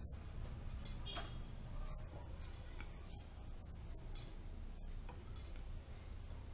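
Ghee on a hot tawa crackling faintly as bread cubes are set down on it for shallow-frying: scattered light crackles and ticks over a low steady hum.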